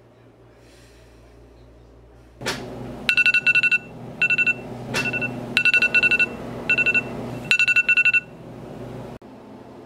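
Smartphone alarm going off: bursts of rapid, high electronic beeps in quick groups. A sudden knock comes just before the beeping starts, and the beeping stops about a second before a sharp cut.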